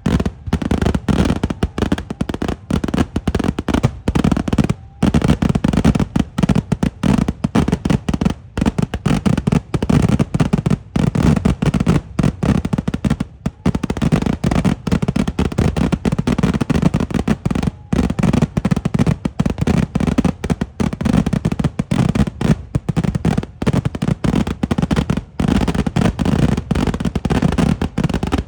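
Eeduvedi, the rapid barrage of Kerala pooram fireworks: a dense, unbroken string of heavy firecracker bangs, many a second, with a deep low rumble under them.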